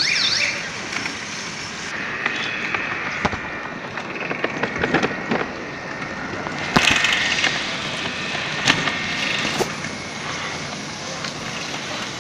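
Rattling and clicking of bicycles and cycle rickshaws on a wet road over a steady outdoor hiss, with a few sharp knocks scattered through.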